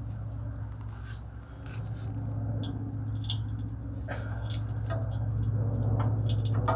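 Light clicks and scraping of small metal parking brake hardware being handled as the retaining clips are fitted, over a steady low hum.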